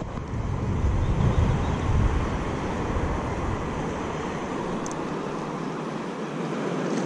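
Wind buffeting an action camera's microphone over open water, a low rumble with a hiss of wind and water, strongest in the first few seconds and easing off after about five.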